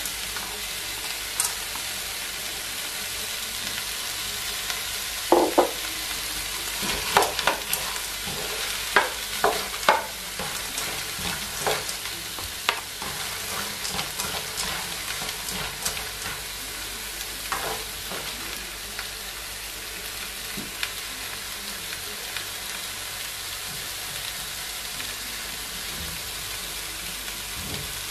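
Diced vegetables, egg and green peas sizzling steadily in a nonstick pan, with the scrape and knock of a wooden spatula and a plastic turner stirring them against the pan, the knocks coming most often in the first half.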